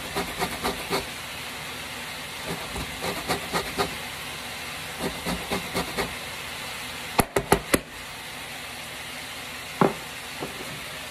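Navel orange rubbed against a stainless steel box grater, zesting it in quick runs of rasping strokes over a steady hiss. A little past halfway come four sharp knocks in quick succession, then one more knock near the end.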